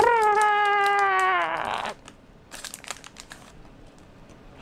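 A person's high-pitched voice holding one long note for about two seconds, sliding slightly down and wavering at the end. It is followed by crinkling of a candy wrapper.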